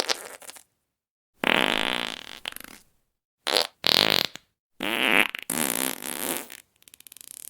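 A run of fart sounds with silent gaps between them: a long sputtering one about a second and a half in, a short one around three and a half seconds, another long one near five seconds, then a faint rapid flutter near the end.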